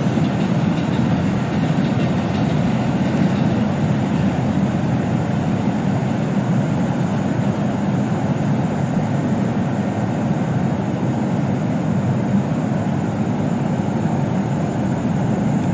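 Steady low rumble and hum of a red Meitetsu commuter train standing at the platform, its equipment running.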